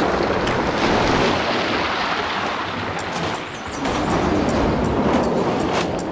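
Shallow sea water sloshing and splashing around a half-submerged camera, with wind on the microphone. The sound dips briefly a little over halfway through.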